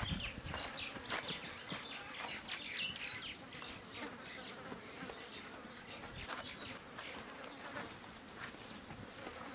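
Insects buzzing with many short, high chirps. A few low hoof thuds on dirt come right at the start as a sheep trots to a stop.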